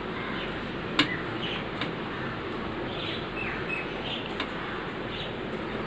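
Hands kneading chhena on a steel plate: soft rubbing with a few sharp clicks, the loudest about a second in, over a steady background hiss. Several short high chirps come through.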